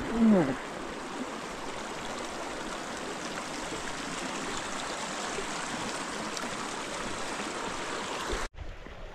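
Mountain creek rushing steadily over rocks. Just after the start a short, louder sound falls in pitch, and near the end the rushing breaks off abruptly.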